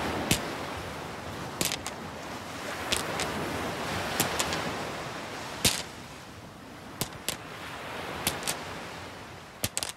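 Sea waves washing up and drawing back on a shingle beach, the surf swelling and ebbing, with sharp scattered clicks of pebbles knocking together in the wash. The surf fades down near the end.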